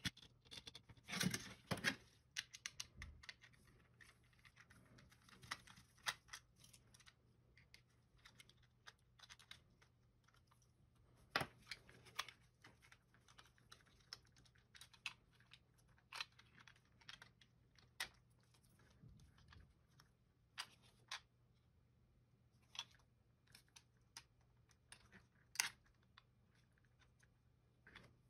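Small plastic clicks and taps from a Microsoft IntelliMouse Optical's shell and internal parts being handled and pried during disassembly, coming irregularly, a few of them sharper.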